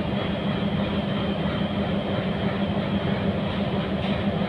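Steady hum and rumble of a standing locomotive's running machinery, an even, unbroken drone with a low hum throughout.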